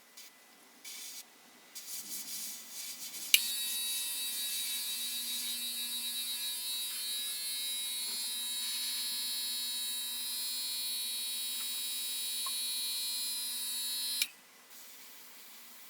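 Small electric air compressor for the airbrush. After a few faint knocks, it switches on with a click about three seconds in, runs with a steady buzzing hum for about eleven seconds, then cuts off with a click.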